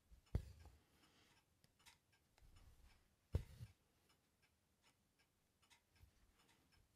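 Faint sounds of hand embroidery: a needle piercing fabric stretched taut in an embroidery hoop gives two sharp ticks about three seconds apart, each followed by a soft rustle as the thread is drawn through.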